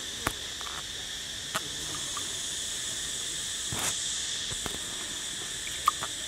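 Steady high-pitched drone of insects, with a few short splashes and drips as raw pig intestines are lifted and dipped to rinse them in a shallow stream.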